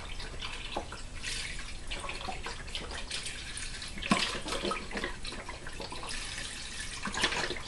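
Chicken stock pouring in a steady stream from a carton into a cooking pot.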